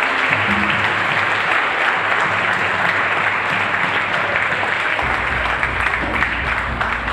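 Audience applauding, with dense, steady clapping. A low hum comes in about five seconds in.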